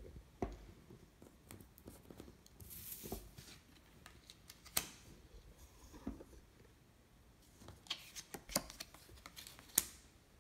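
Playing cards being dealt and laid down on a stone countertop: a handful of sharp card snaps and slaps at irregular intervals, with a short sliding swish about three seconds in.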